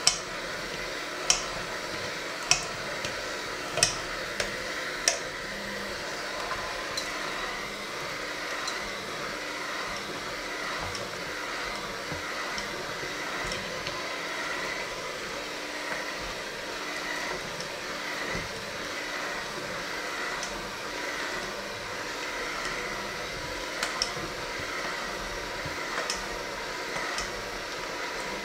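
Electric hand mixer running steadily, its beaters churning a thick mixture in a stainless steel bowl. Sharp clinks of the beaters striking the bowl, several in the first few seconds and a few more near the end.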